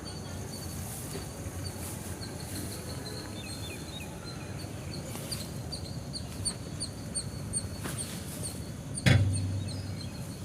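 Small birds chirping repeatedly in short, evenly spaced notes over a steady outdoor background. About nine seconds in there is a single sharp knock with a short low ring after it.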